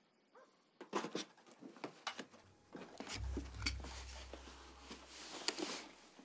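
A run of short knocks, clicks and rustles, with a low rumble coming in about three seconds in and fading near the end.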